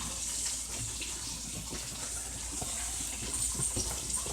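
Steaks searing in a hot frying pan: a steady sizzle with fine crackling.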